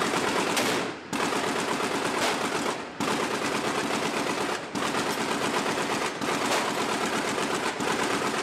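.50 calibre gunfire from several weapons firing at once, rapid and near-continuous, broken by short pauses every second and a half or two.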